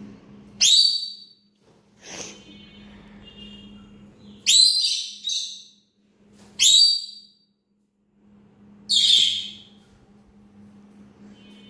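A parrot giving loud, harsh screeching calls every couple of seconds, two of them close together near the middle, with a few fainter whistled notes between.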